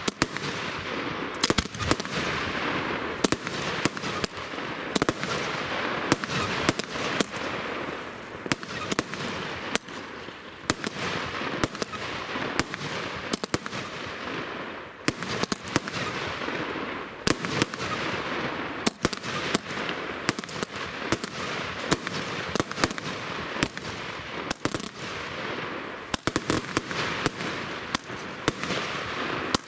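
Fireworks display: sharp bangs going off irregularly, often one to three a second, over a continuous hiss that swells and fades every few seconds.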